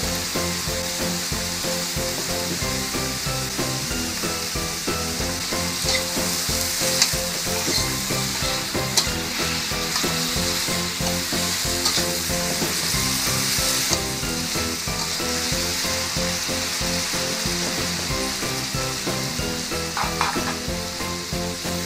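Snow peas and pork belly sizzling steadily in a hot wok as they are stir-fried, with a metal spatula scraping and clicking against the wok several times.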